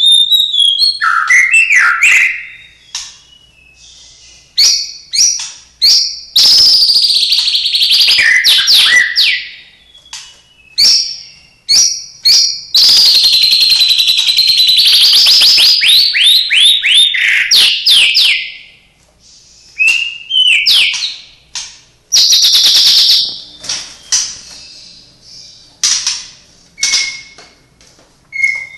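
White-rumped shama (murai batu) singing loud, varied phrases of clear whistles, sweeping notes and fast trills, with short pauses between phrases. Its song is stuffed with imitations of other birds such as canary, lovebird and sparrow.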